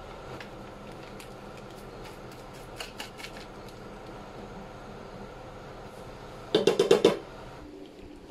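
Wooden spoon knocking against a stainless steel cooking pot: scattered light clicks, then a quick clatter of about six knocks near the end, over a steady low hum.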